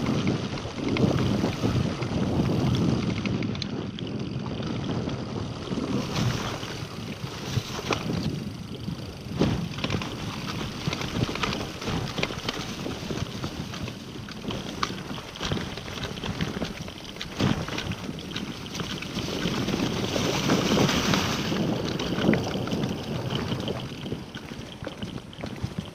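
Scott Genius LT 710 Plus full-suspension mountain bike riding a dirt trail: tyres rolling over dirt and stones, with frequent knocks and rattles from the bike. Wind buffets the microphone, louder near the start and again about three-quarters of the way through.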